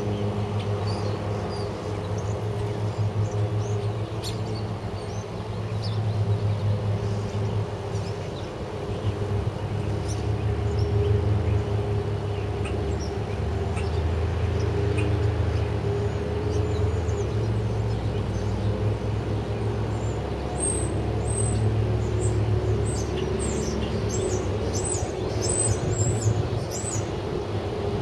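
Light wind buffeting the camera's microphones as an uneven low rumble, over a steady low hum. Birds chirp throughout, more busily in the last several seconds.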